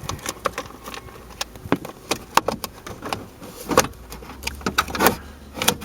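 Plastic lower steering column cover being pried off, giving a run of irregular clicks and snaps as its tight clips work loose, with a few louder snaps among them.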